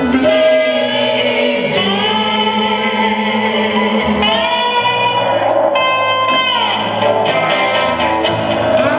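Rock music led by electric guitar, playing held notes that bend up and down in pitch.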